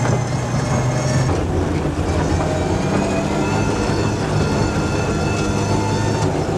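Ford Escort rally car's engine running steadily under throttle, heard from inside the cabin, with tyres rumbling on gravel. The engine note drops a little about a second in, then holds steady.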